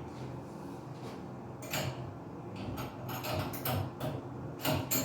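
Short metallic scrapes and knocks from an old shower head being gripped and twisted by hand at its fitting on the shower arm, the head stuck and not coming loose. The sounds come in a few bursts, the loudest near the end.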